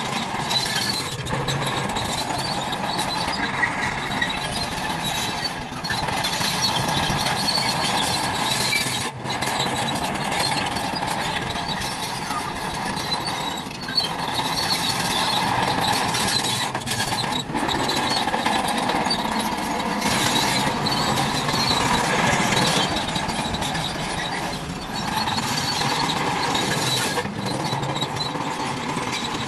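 Small electric motors and plastic gearboxes of toy trucks and bulldozers running, a steady whirring whine with brief dips in level.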